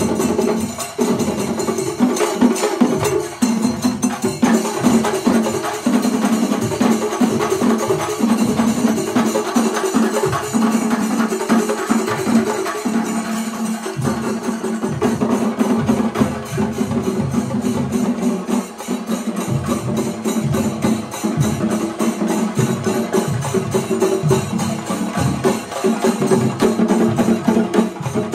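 Shingarimelam troupe of chenda drums played together, with dense, rapid stick strokes in a fast, driving rhythm.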